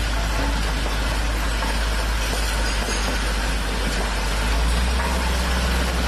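Road roller's diesel engine running with a steady low rumble that grows a little louder about four and a half seconds in, over a constant crackling clatter of glass beer bottles being crushed under its steel drums.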